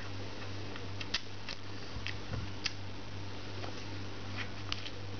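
Room tone: a steady low hum with a few faint, scattered clicks.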